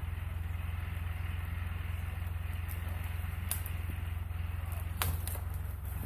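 An engine idling steadily with a low, even rumble. Two sharp snaps come about three and a half and five seconds in.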